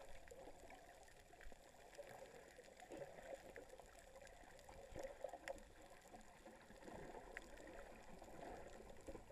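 Near silence: faint, muffled underwater noise of moving water, with small scattered clicks and crackles.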